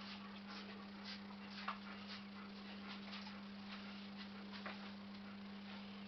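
Faint scattered clicks and ticks, the sharpest about 1.7 s in, over a steady low hum.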